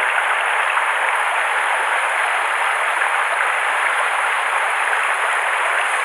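Shallow mountain stream running over rocks: a steady, even hiss of flowing water.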